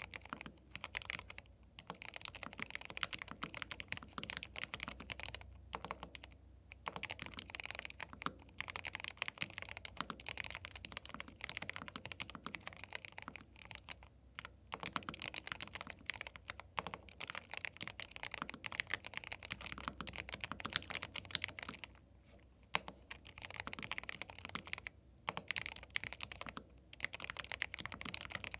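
Continuous fast typing on a YUNZII B75 Pro gasket-mounted 75% mechanical keyboard with MILK linear switches: quick runs of keystrokes broken by brief pauses.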